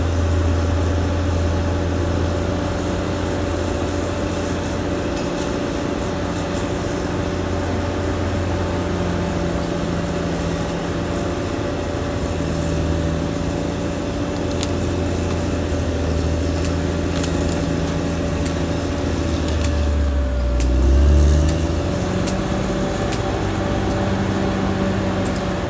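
Caterpillar D6R XL bulldozer's diesel engine running under working load, a steady low hum with a steady whine above it and scattered light ticks. About three-quarters of the way through the engine note sags and then picks back up.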